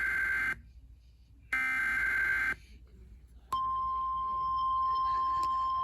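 Two bursts of NOAA Weather Radio SAME header data, each a raspy digital warble about a second long, followed about three and a half seconds in by the steady 1050 Hz weather radio warning alarm tone, which signals the start of a new warning broadcast.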